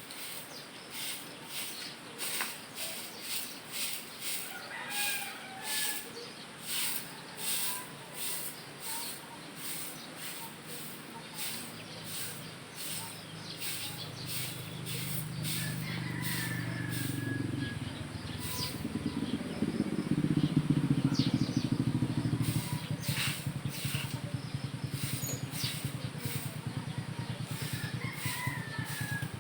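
Sweeping: regular scraping strokes, about one a second, with a few short bird calls. A low engine rumble builds past the middle, is loudest a little after it, then eases off.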